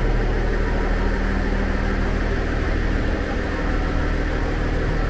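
Diesel railcar idling at a station platform, a steady engine hum that holds unchanged.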